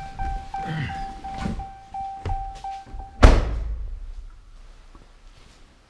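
Feiyu G5 handheld gimbal carrying a GoPro Hero 4 Silver: a steady high motor whine with light clicks about three times a second. A little past three seconds in it is cut off by a single loud thunk, the camera banging against the bottom of the gimbal.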